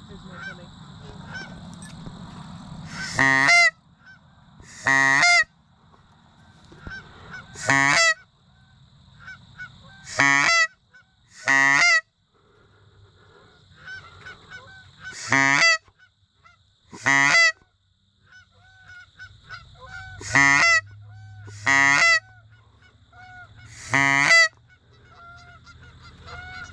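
Goose honks, about ten loud single honks one to three seconds apart, each with a quick break in pitch.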